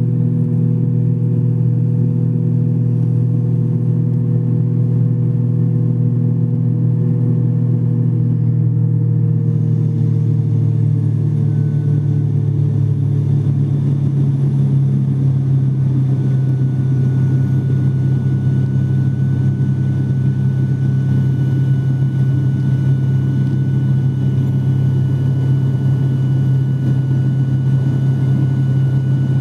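Airliner engines droning steadily with a strong low hum. A mid tone slides slightly lower about ten seconds in and fades out, and a thin high whine comes in around halfway.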